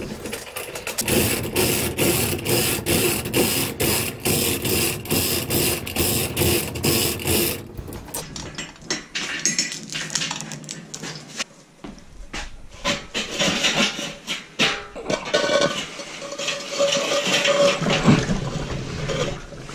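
Hand-pulled chain hoist clinking in a fast, even rhythm, about four clinks a second, as it lowers a wire basket of straw. About halfway through the rhythm stops, giving way to scattered metal clanks and the hiss of steaming water as the basket settles into the drum of hot water.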